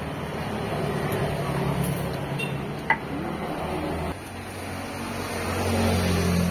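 Steady low hum of a nearby motor vehicle engine, swelling louder near the end. A single sharp knock about three seconds in fits the stone pestle being set down in the stone mortar.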